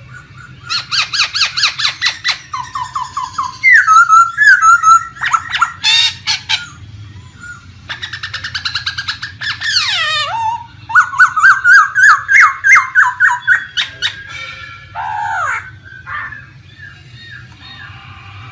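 Laughingthrush singing a long, varied wild-type song. It runs through fast series of repeated notes and trills, loud whistled phrases, and a sweeping downward slur about ten seconds in, growing softer near the end.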